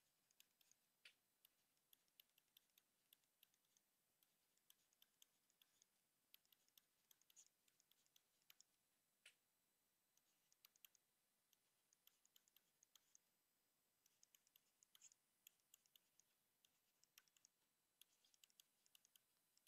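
Near silence broken by faint, irregular clicks and taps of a stylus on a tablet during handwriting.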